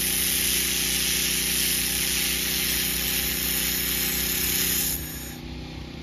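Handheld wire-feed laser welder laying a bead on a steel corner joint: a steady hiss over a steady machine hum, cutting off about five seconds in when welding stops, leaving a quieter hum.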